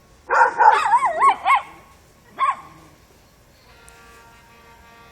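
Dog barking at a cat: a burst of high, wavering yelping barks lasting about a second, then one more short bark about two seconds in.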